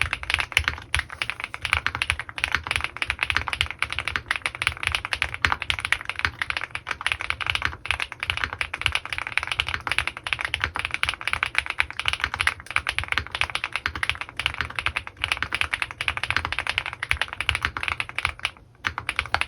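Fast, continuous typing on an Owlab Mr.Suit custom mechanical keyboard with lubed Gateron Pure Berry linear switches and GMK keycaps: a dense stream of keystrokes, with a short pause near the end.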